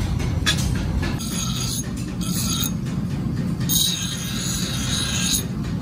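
Electric bench grinder running with a steady motor hum, as a steel axe head is pressed against the grinding wheel in two spells, giving a harsh grinding hiss each time it bites.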